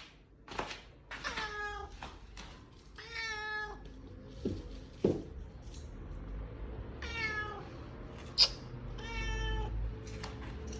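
Domestic cat meowing four times, each call about half a second long and dropping in pitch at the end, with a few sharp taps in between.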